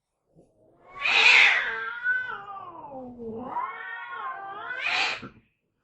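A cat hissing, breaking into a long yowl that falls in pitch and rises again, and ending in a second sharp hiss.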